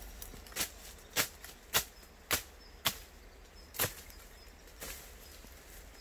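A hand blade chopping through weeds and brush stems: six sharp strikes about half a second apart, then a pause after about four seconds.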